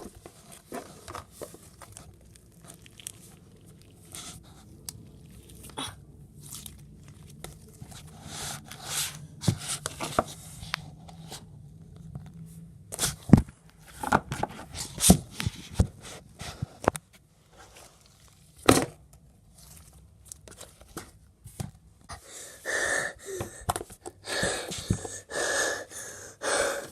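Slime being handled, stretched and squished in the hands, giving irregular sticky pops, clicks and tearing sounds.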